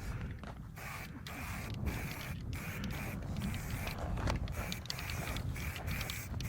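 A runner's heavy breathing in a regular rhythm, about two breaths a second, over a steady low rumble.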